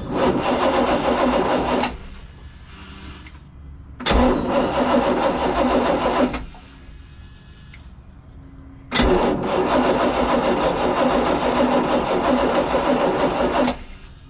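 Crusader 454 marine V8 cranking on its starter without firing, in three separate bursts, each starting with a click, the last one the longest. The engine is starved of fuel, with too little reaching it to run.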